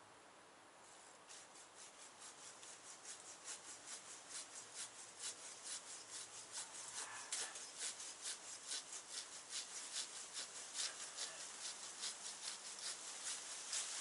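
Handsaw cutting through a tree branch: rhythmic back-and-forth strokes, about three a second, starting about a second in and growing louder.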